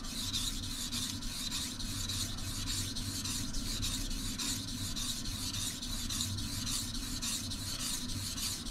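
Steel kitchen knife blade being stroked back and forth on a wet whetstone, grinding the edge in quick, even, repeated strokes.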